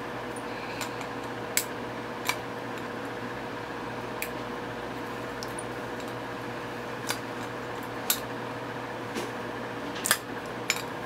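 A cutting tool snipping and prying at the soft aluminium crimp collar of a perfume bottle's sprayer: about eight sharp, irregular metallic clicks and clinks, some against the glass bottle, over a steady background hum.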